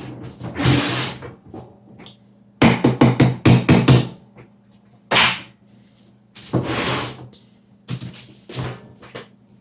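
Plastic clicks, knocks and scrapes from a robot vacuum's dustbin and filter being handled as the filter is taken out, with a quick run of about eight taps a little under three seconds in.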